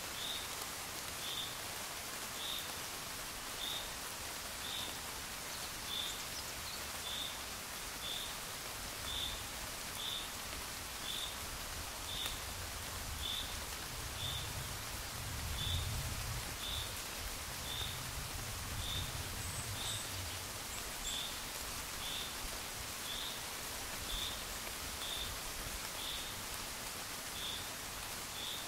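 Steady gentle rain, with a short high chirp repeating about once a second throughout and a low rumble swelling up and fading in the middle.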